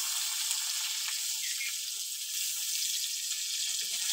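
Chopped onion and cumin seeds sizzling steadily in hot oil in a metal karahi, frying as a tempering. Near the end a spatula begins stirring, scraping against the pan.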